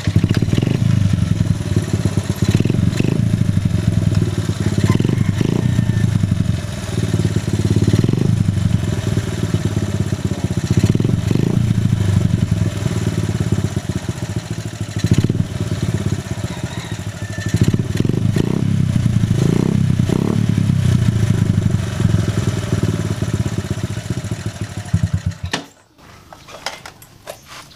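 Honda C70's single-cylinder four-stroke engine starting on the first try after a full rebuild and running for about 25 seconds with uneven loudness, then cutting off suddenly.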